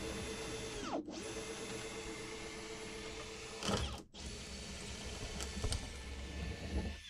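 Power drill running steadily as it bores holes in a new plexiglass deadlight pane, broken twice by very short gaps.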